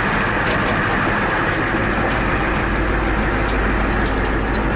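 Steady engine and road noise heard from inside a moving vehicle's cab, with a low rumble that grows stronger about two seconds in.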